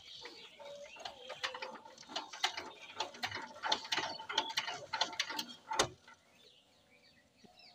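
Rapid, irregular metallic clicking and ratcheting from a walk-behind power tiller's diesel engine being worked by hand, stopping about six seconds in.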